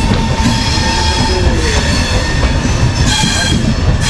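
Duronto Express sleeper coach running on the rails after leaving the station, a loud steady rumble heard from on board. Thin high-pitched wheel squeal comes in and out over it, strongest near the end.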